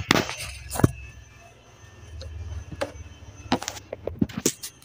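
Handling noise from a phone camera being picked up and moved: a few sharp knocks and clicks, a low rubbing rumble in the middle, then a quick cluster of knocks near the end.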